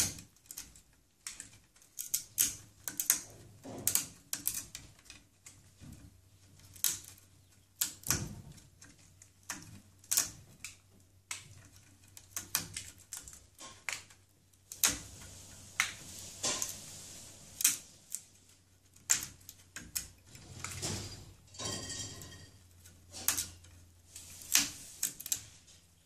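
Amazon parrot chewing at twigs with its beak: a run of irregular sharp clicks and snaps, with a brief squeaky sound about three-quarters of the way through.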